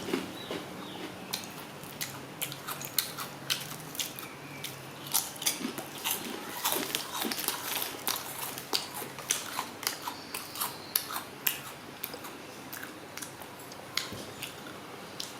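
Plastic packaging crinkling and clicking as a surprise egg toy is handled and unwrapped, in many irregular sharp crackles that thin out after about twelve seconds.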